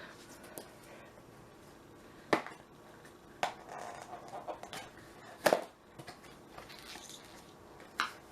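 Packaging and kit pieces being handled during an unboxing: four sharp clicks or knocks spread across a few seconds, the loudest about halfway through, with light rustling between them.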